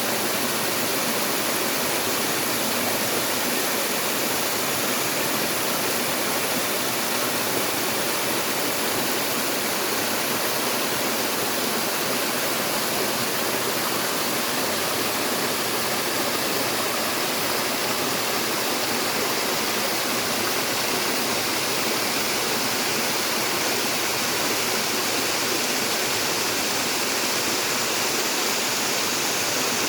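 Mountain stream rushing and gushing over rocks in a steady, unbroken rush of water.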